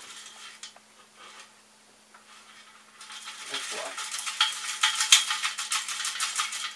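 Stepper-motor wires and connectors being pushed through the 3D printer's square-tube frame. About three seconds in, a dense run of quick clicking, rattling and scraping starts and carries on to the end.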